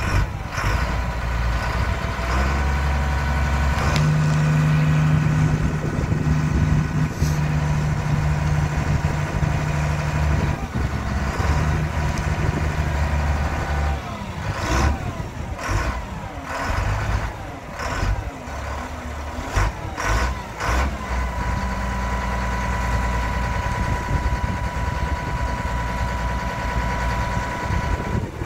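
Diesel engine of a 1999 Sterling LT8511 tandem-axle dump truck running while its hydraulic hoist raises the dump bed. The engine grows louder about four seconds in, and there are a few sharp knocks midway. A steady whine joins near the end.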